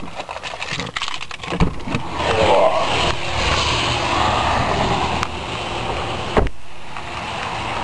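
Someone getting out of a car: clicks and knocks of the door being opened, then a steady outdoor hiss of rain and wet-road traffic, and a single thump about six seconds in, typical of the car door being shut.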